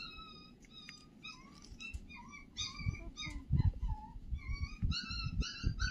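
Tabby kitten mewing in short, high cries while being syringe-fed, the cries coming several a second and more often from about two seconds in. A few low bumps from handling come around the middle.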